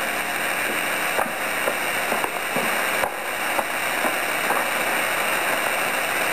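Steady hiss of an old film soundtrack, with faint footsteps about two a second as a man walks across a room.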